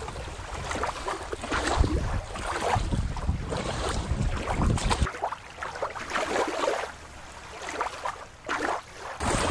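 Wind buffeting the microphone over gently lapping shallow water at the shoreline. About five seconds in it cuts abruptly to a quieter, thinner background hiss, and the gusty wind returns just before the end.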